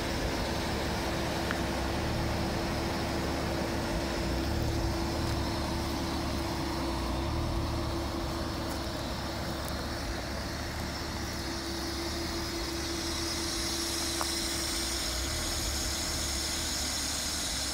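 Porsche Boxster's flat-six engine running steadily at idle, then the car driving off over gravel near the end.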